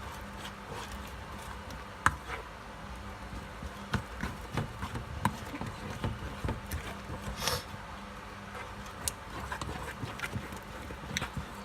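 Freshly activated fluffy slime made with white glue and shaving cream being handled in its container: scattered small sticky clicks and squelches, one longer crackle about halfway through, over a steady low hum.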